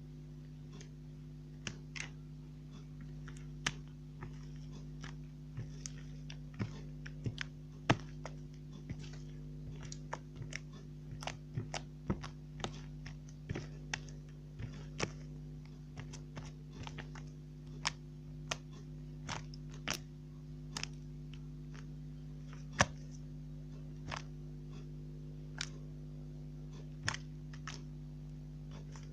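Slime being handled, giving irregular sharp clicks and little pops, about one or two a second, over a steady low hum.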